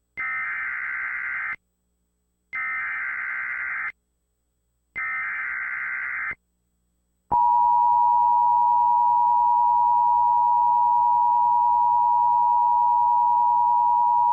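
Emergency Alert System SAME header: three bursts of digital data tones, each about a second and a half long and about a second apart. Then, about seven seconds in, the EAS two-tone attention signal (853 and 960 Hz sounding together) starts as a loud, steady tone. Together they mark the start of an emergency alert broadcast, here a Required Monthly Test.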